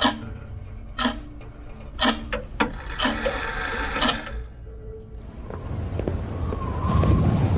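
Film soundtrack of sparse sharp ticks, each with a short low ring, and a dense rattling stretch about three seconds in. From about five seconds a rushing, wind-like noise swells, with a wavering tone near the end.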